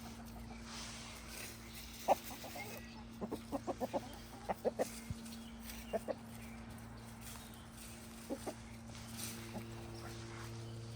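Backyard chickens clucking in short runs of quick clucks, with a rapid string in the middle and scattered pairs after. A steady low hum continues underneath.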